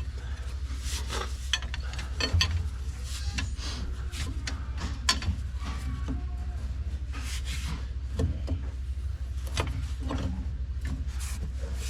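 Scattered metallic clicks and knocks of hand tools working on the tractor's transmission housing, the loudest clank about two and a half seconds in and another near five seconds, over a steady low hum.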